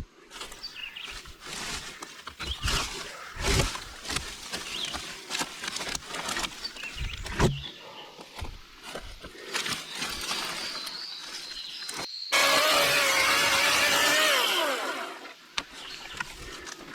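Scattered crunches and knocks of brush being handled, then about twelve seconds in a Milwaukee M18 Fuel battery-powered chainsaw comes on at full speed at once, runs for about three seconds, and winds down with a falling pitch.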